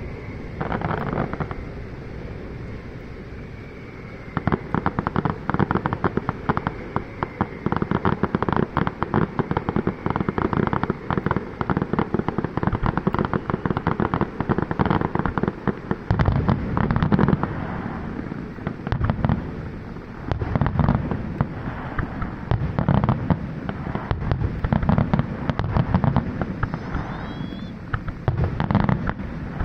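Fireworks display: a dense stream of rapid crackling pops from about four seconds in, with deeper booms mixed in through the second half.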